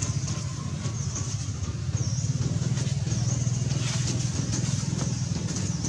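An engine running steadily with a low, fast-pulsing hum, and a short high chirp repeating about once a second.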